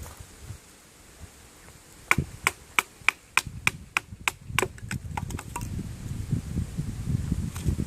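Knife chopping into a wooden stick: about ten sharp, evenly spaced strikes, roughly three a second, starting about two seconds in, then a few lighter taps. Low rustling of the wood being handled follows.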